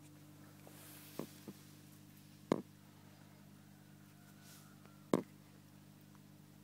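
Steady low hum of running aquarium equipment, with a few sharp knocks: two small ones close together a little past a second in, then two louder ones about two and a half and five seconds in.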